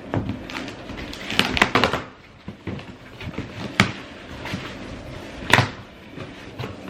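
A cardboard shipping box being opened and handled: rustling and scraping, with two sharp knocks, one near the middle and one later on.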